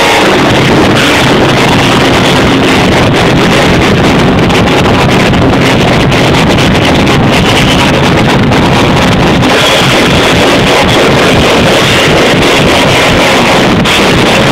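Seven-string electric guitar and drum kit playing together, recorded so loud that the sound is overloaded into a constant distorted wash with little detail.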